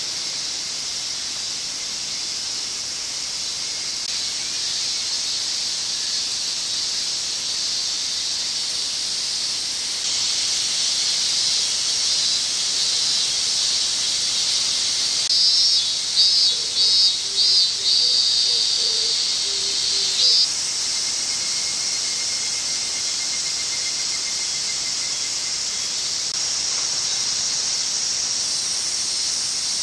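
Cicadas shrilling in a steady high chorus. About halfway through, a louder pulsing call joins for about five seconds.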